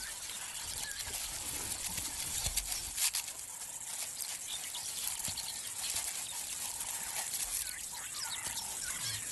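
African wild dog rolling on its back in dry grass to leave its scent, with soft rustling and a few brief knocks. Under it runs a steady hiss of bush ambience with scattered bird chirps.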